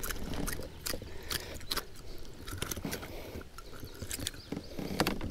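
Irregular light clicks, taps and scrapes of handling a freshly caught smallmouth bass and unhooking it over a plastic kayak deck.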